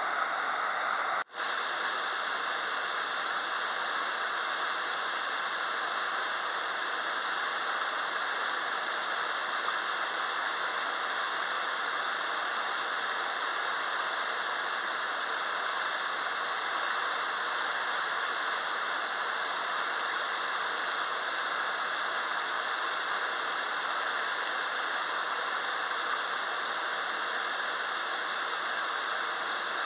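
Waterfall's water rushing steadily, with a momentary gap about a second in.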